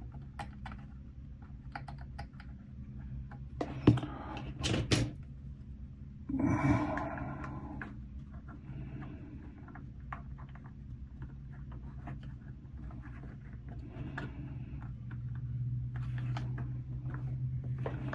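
Light clicks and taps of plastic model-kit parts and tools being handled on a workbench, with a sharper click about four seconds in and a brief rustle a couple of seconds later, over a steady low hum.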